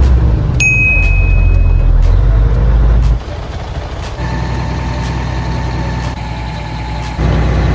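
Diesel engine of a concrete pump truck running with a deep, steady hum, dropping in level about three seconds in and rising again near the end. A brief high, thin tone sounds in the first two seconds, and a fainter steady whine sits over the engine in the middle.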